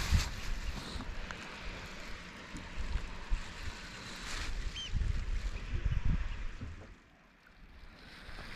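Wind gusting across the microphone over the wash of sea water against rocks, with a short high chirp about four and a half seconds in.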